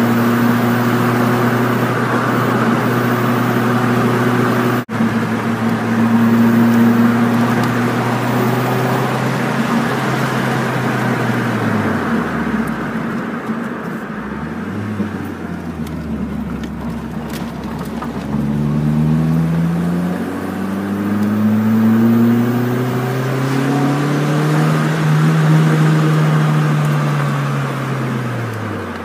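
1998 Mitsubishi Eclipse GS's 2.0-litre four-cylinder engine, with a cold air intake and a stainless header-back exhaust, running under way. Its revs hold steady, drop off about twelve seconds in to a low, even note, then climb again in a long rise from about eighteen seconds before falling away near the end.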